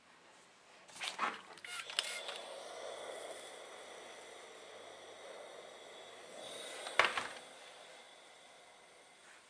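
Steam iron pressing fabric: a few knocks as the iron is handled about a second in, then a steady steam hiss for about five seconds, cut by a sharp knock about seven seconds in, the loudest sound.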